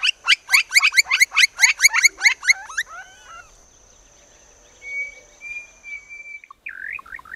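Campo flicker calling: a loud, fast series of repeated sharp notes, about six a second, for nearly three seconds. Fainter bird calls follow, with a thin steady whistle and a quick run of falling notes near the end.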